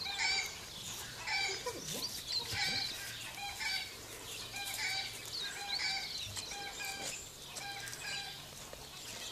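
Hens cackling again and again, the flock's noisy egg-laying cackle after a hen has laid, the calls coming about one or two a second.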